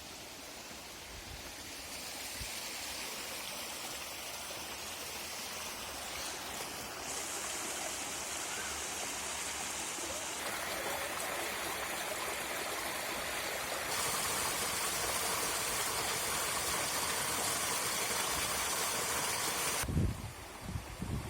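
Steady rushing of a stream's flowing water, growing louder in a few sudden steps. Near the end it gives way to a few uneven low bumps.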